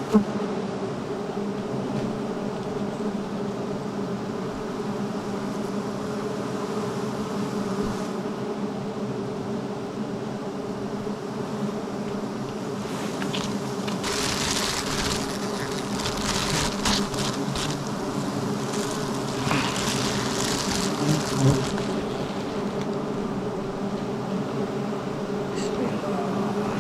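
Swarm of honeybees buzzing steadily around their nest during a honey harvest. About halfway through, a rustling, crackling noise joins the buzz for several seconds.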